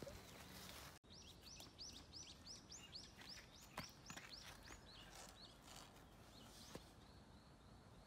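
Faint outdoor quiet with a bird singing a quick run of repeated high notes, about three a second, that trails off about five seconds in.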